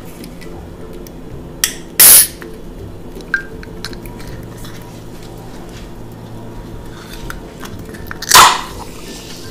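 Can of Coca-Cola being opened by its ring-pull tab: a few small clicks, a short loud hiss of escaping gas about two seconds in, and another hissing crack near the end as the tab is forced up.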